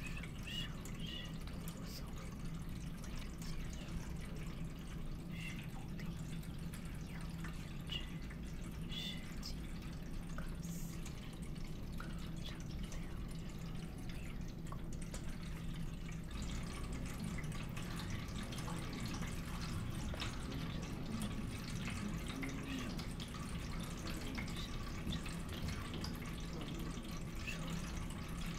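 A steady low hum with scattered faint drip-like plinks; a fine crackle comes in about halfway through.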